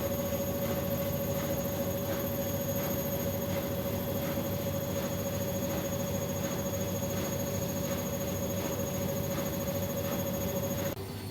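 Bosch Maxx WFL 248Y washing machine spinning at high speed (its extra-spin program tops out at 800 rpm), with a steady motor whine over a rumble. Shortly before the end the whine cuts off suddenly and the drum starts to coast down, pitch falling.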